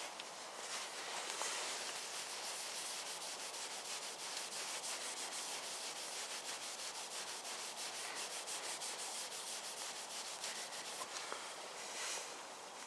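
Hand rubbing on car paintwork in quick back-and-forth strokes, several a second, a dry scratchy hiss that breaks off about eleven seconds in.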